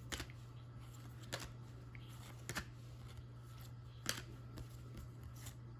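Trading cards being handled and flipped through: a few sharp, light clicks and snaps, the loudest about four seconds in, over a steady low hum.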